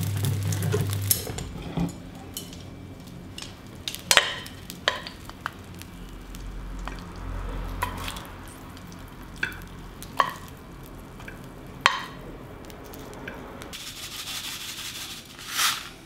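A spoon stirring a saucepan of simmering soup at first, then rolls frying quietly in a nonstick pan. Chopsticks click sharply against the pan and plate several times as the rolls are turned and lifted out.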